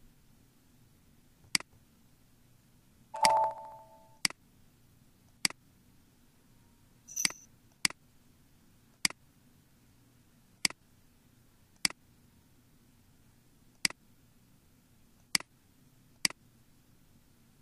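Computer mouse clicks, about ten of them, a second or two apart. About three seconds in comes a short electronic chime of several tones, the loudest sound, and around seven seconds a brief high electronic beep.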